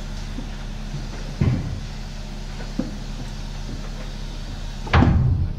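Steady low workshop hum with two heavy knocks, one about a second and a half in and a louder one near the end, plus a lighter tap between them, from work on the truck's suspension.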